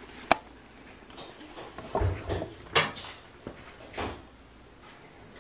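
A few short clicks and knocks of doors or cupboards being handled: the sharpest click comes about a third of a second in, then a cluster of dull knocks around two seconds, a sharp click near three seconds and another knock about four seconds in.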